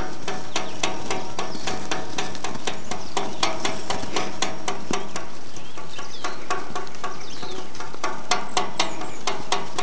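A stick knocked repeatedly against a wooden gate, about three knocks a second. It is the signal the sheep have been trained to follow when they are moved.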